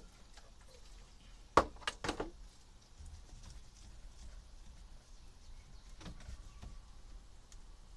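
Hands scrubbing a truck's steering wheel with a rag: a quick run of four sharp knocks about one and a half seconds in, then a few fainter taps near six seconds.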